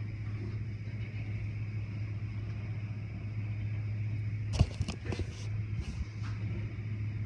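Automatic tunnel car wash heard from inside the car: a steady low hum from the wash machinery and the car. About four and a half seconds in comes a sharp knock, then a few short hissing bursts of water and foam against the car.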